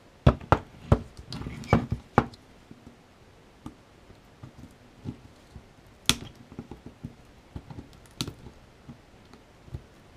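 Metal snips cutting and snapping the spot-welded nickel strips of a lithium-ion battery pack to free an 18650 cell. Quick sharp snaps come close together at first, then a couple of single snaps later, with small handling sounds between.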